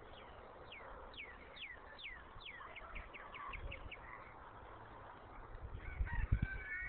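A songbird sings five falling whistled notes about half a second apart, then a quick run of short notes. Near the end a peacock gives a louder, wavering call, over a few low thumps.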